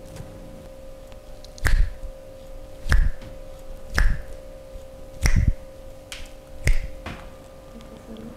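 Five percussive slaps of hands on a person's body during a massage, each a sharp crack with a dull thump, spaced about a second apart. A steady faint hum runs underneath.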